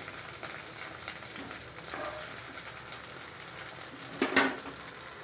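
Okra frying in hot oil in a nonstick pan, a steady sizzle, with one brief louder sound about four seconds in.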